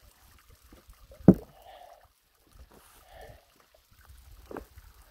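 A sharp, loud thump about a second in and a softer knock near the end, over a faint low rumble.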